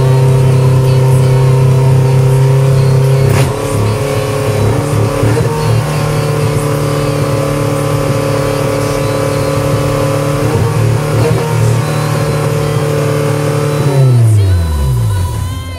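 Toyota 4A-GE twin-cam 16-valve 1600 four-cylinder engine running at idle. The engine speed dips about three seconds in and picks up again, an idle that still needs its throttle cable and throttle-body idle controller adjusted. Near the end it is switched off and winds down to a stop.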